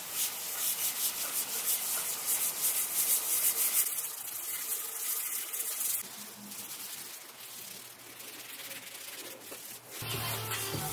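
Cloth rag rubbing finish onto a Baltic birch plywood surface in quick back-and-forth strokes, a dry scrubbing hiss. It grows quieter after about six seconds, and near the end a different sound with low steady tones comes in.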